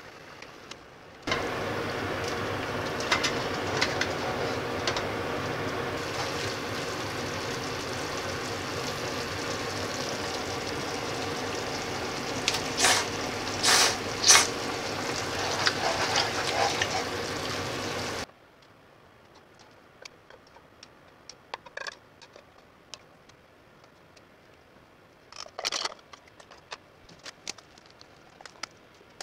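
Steady stovetop noise as a frying pan of spaghetti in tomato soup simmers, with a few sharp clinks of a utensil against the pan. It cuts off suddenly about 18 seconds in, leaving quiet small clicks and clinks of serving into bowls.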